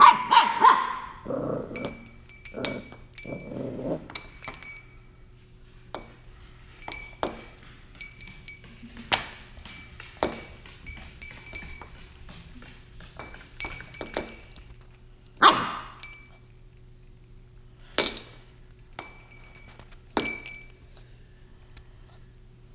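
Corgi puppy barking and growling at a small hanging bell, which clinks and rings each time she noses or bites it. Loud single barks come near the start and again three times in the second half.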